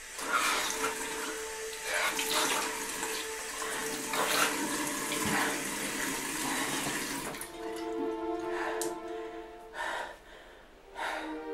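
Water running from a tap and splashing in a bathroom sink as a face is washed, loud and continuous for about seven seconds. Then the water gives way to sustained music chords, with a few short splashes.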